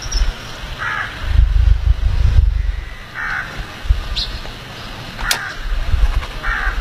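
A bird calling four times, short calls a second or two apart, over low wind rumble on the microphone.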